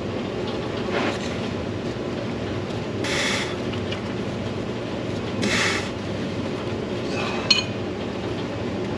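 Two short scraping sounds and a sharp metallic click over a steady low hum, as a starter mounting bolt is worked by hand into its hole.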